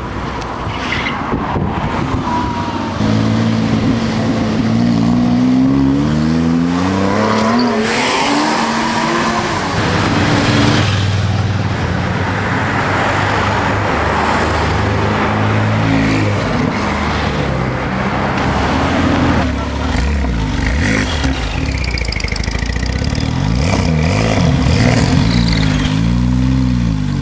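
Porsche GT2's twin-turbo flat-six with Akrapovic exhausts revving and accelerating, the engine note climbing and falling several times, with a run of quick revs near the end.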